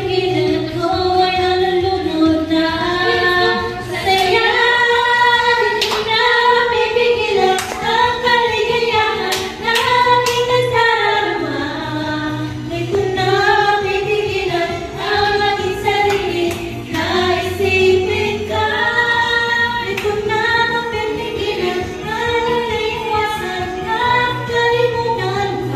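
A woman singing karaoke into a microphone over a backing track of music.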